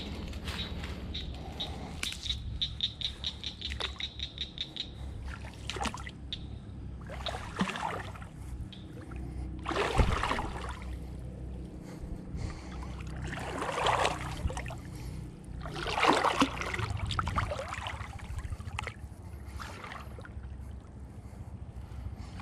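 Pond water sloshing and splashing around a person's legs as he wades out into it, with loud bursts at several points and breathing close to the microphone. A brief run of rapid high ticks sounds a few seconds in.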